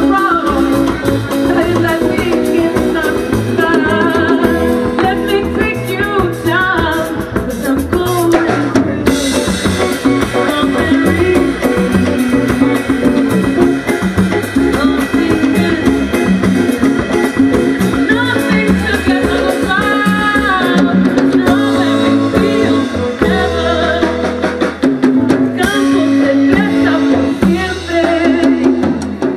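Live band playing a Latin-styled rock cover: drum kit, upright double bass and acoustic guitar, with a woman's lead vocal in parts.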